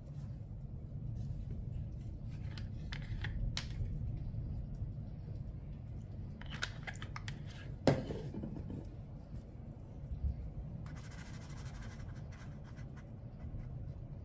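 Small scratchy sounds of a watercolor paintbrush being worked on the palette and paper, with a sharp tap a little before the middle and a short burst of scratchy brushing about three quarters of the way through, over a faint steady hum.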